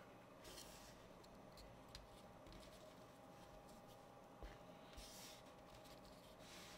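Faint handling of a small wooden model kit: a few light clicks and soft scrapes as fingers press a spoked wooden wheel onto the carriage's axle.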